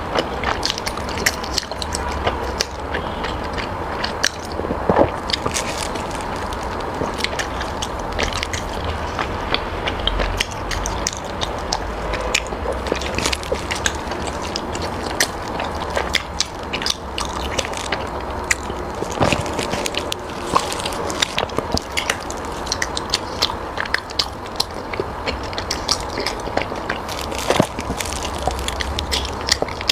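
Close-miked eating sounds: a person biting and chewing food, with many small wet clicks and smacks scattered throughout over a low steady hum.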